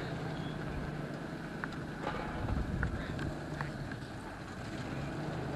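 Outdoor background: a steady low rumble with wind on the microphone, and a few faint clicks.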